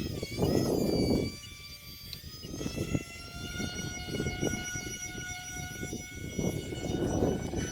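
Twin electric ducted fans of a UMX A-10 model jet whining, the pitch wavering up and down for the first two seconds or so, then holding steady. Wind buffets the microphone in gusts, about half a second in and again near the end.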